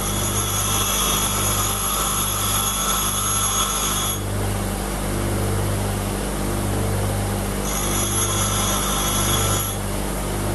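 Bench grinder motor running with a hum, and a high-pitched grinding whine as a high-speed-steel drill bit is pressed against the wheel to grind its back relief. The whine lasts about four seconds, then comes again for about two seconds near the end.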